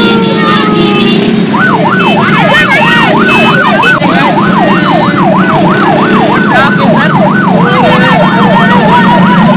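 A siren sounding in fast yelps, its pitch swinging up and down about three times a second, starting a second and a half in after a falling wail dies away. Underneath is a steady low din.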